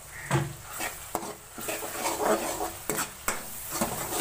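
Metal spoon stirring and scraping a tomato masala with freshly added spices in a pan while the paste sizzles, with a few sharp clinks of the spoon against the pan.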